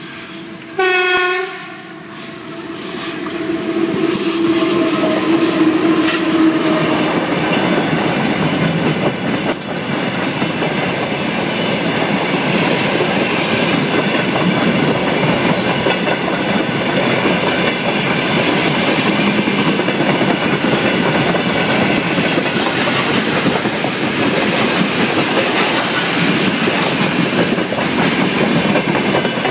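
An electric freight locomotive gives one short horn blast about a second in. The train then passes close by, a long string of open gondola wagons rolling past with a steady rumble and the clatter of wheels on the rails.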